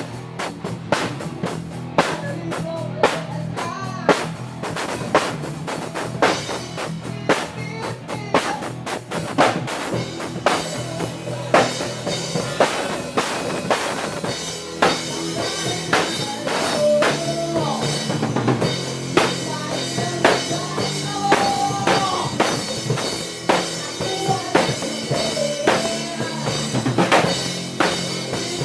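Live rock music: a drum kit keeping a steady beat over a bass line.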